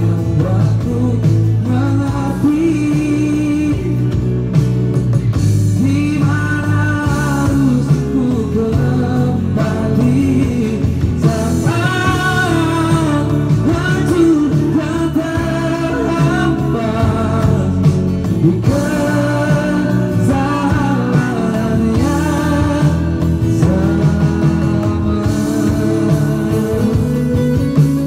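Live band playing a song: a singer's voice in phrases of a few seconds over steady low instrument parts and percussion struck with sticks.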